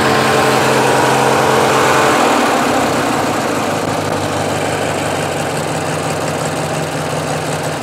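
Briggs & Stratton opposed-twin engine of a Craftsman LT1000 lawn tractor running steadily, its tone shifting about two seconds in. It runs with the choke lever held nearly all the way up, which it needs in order to run well.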